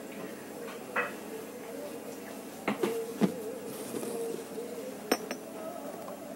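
Dishes and glasses clinking at a restaurant table: a handful of short, sharp knocks and clinks, the loudest about three and five seconds in, over a faint murmur of voices.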